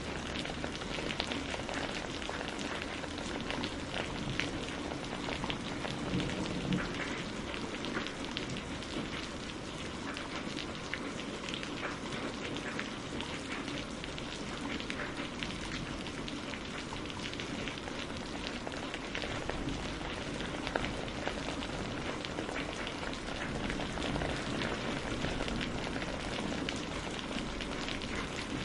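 Steady rain falling on a greenhouse roof, with many fine individual drop ticks over an even hiss.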